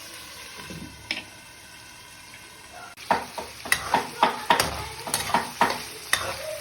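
Chicken frying in oil, a steady sizzle. From about three seconds in, a utensil knocks and scrapes against the pan in a quick run of strikes, about two or three a second, as the chicken is stirred.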